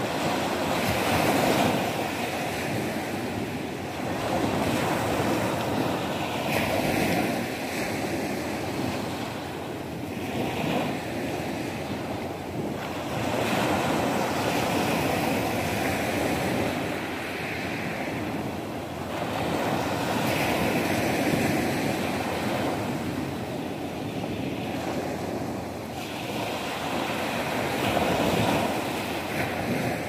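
Small ocean waves breaking and washing up a sand-and-pebble shore. The surf swells and falls back about every six to seven seconds.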